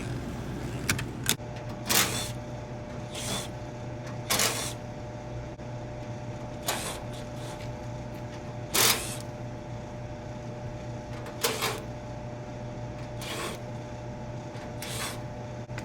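Cordless driver backing sheet-metal screws out of a rooftop package unit's panels, in about ten short bursts one to three seconds apart, over a steady low hum.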